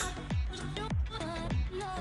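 Background music with a steady beat of deep drum hits that fall in pitch on each hit.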